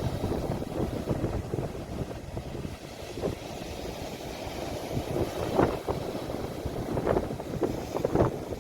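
Sea waves and wind rumbling low against a phone's microphone, with a few brief louder splashes from about halfway through.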